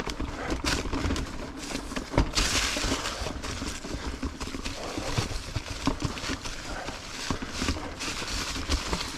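Ibis Ripmo full-suspension mountain bike clattering over rocky singletrack: tires knocking on rocks, chain and frame rattling in quick irregular knocks. A short rushing hiss comes in about two and a half seconds in.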